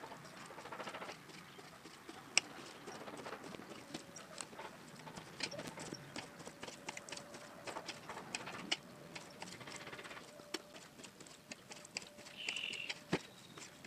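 Kitchen knife slicing raw liver into strips on a ridged stainless-steel drainboard. The blade taps the metal in quick, irregular clicks.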